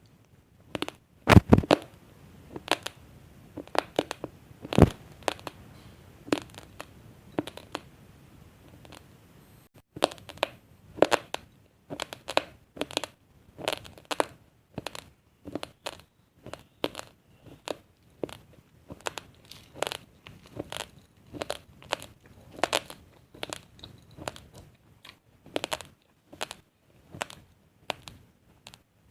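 Raw basmati rice grains crunched between the teeth: a run of short, sharp crunches, one or two a second, with a brief pause about a third of the way in.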